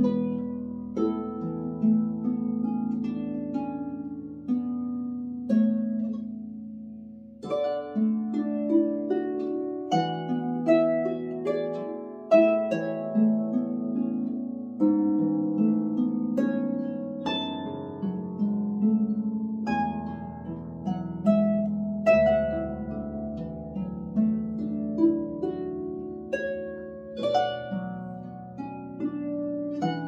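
Solo lever harp played by hand: a slow tune of plucked melody notes over long ringing bass notes, each note struck sharply and left to fade.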